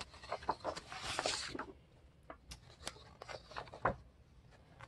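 Paper sheets rustling as pages are handled and lifted off a paper trimmer, with many light clicks and taps. The rustling dies down after about a second and a half, leaving scattered clicks and one sharper tap near the end.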